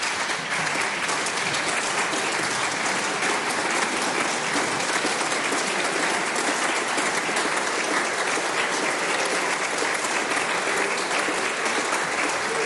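Steady applause from a chamber full of members of parliament, many hands clapping at once.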